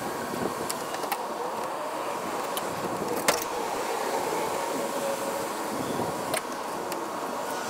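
Fillet knife slicing through a snook's scaled skin and flesh on a plastic crate, with a few sharp clicks, over a steady outdoor background hiss.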